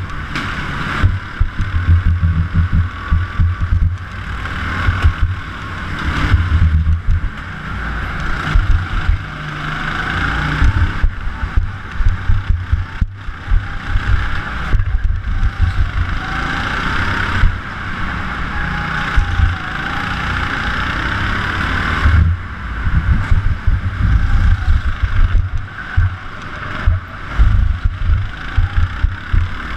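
A go-kart lapping an indoor track, heard from on board. Its drive note rises and falls in pitch through the straights and corners, over a heavy, uneven low rumble.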